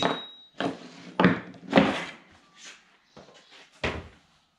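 About five sharp, unevenly spaced knocks and thuds of hand tools and metal on a plywood board. The first has a brief high metallic ring.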